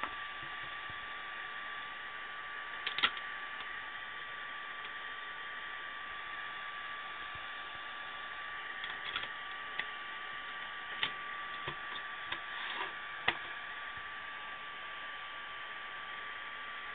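Clear plastic CD jewel case being handled, giving a few light clicks and taps, the sharpest about three seconds in and another later on. Under them runs a steady hiss with a thin constant whine.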